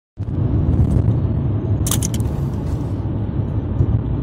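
Car driving at road speed, heard from inside the cabin: a steady low rumble of engine and tyres that cuts in suddenly, with a brief cluster of sharp clicks about two seconds in.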